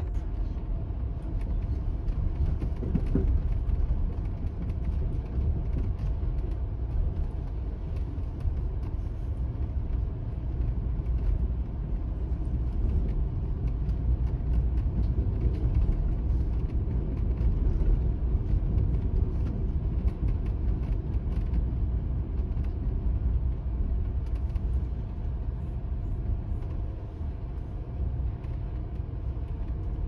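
Steady low rumble inside an Amtrak Superliner sleeping car as the train rolls along the track, with faint scattered ticks over it.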